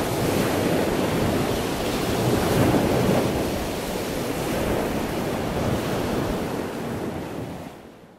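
Ocean surf: waves breaking and washing in a dense, steady rush that swells and ebbs, fading out over the last second.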